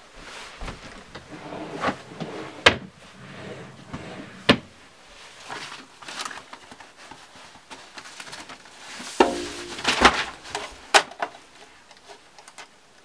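Papers and small objects handled on a wooden desk: rustling, broken by about four sharp knocks and clicks, two of them close together near the end.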